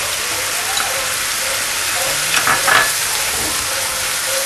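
Baby clams and Thai sweet basil sizzling steadily in hot oil in a pan while being stir-fried, with a few louder spatula scrapes about halfway through.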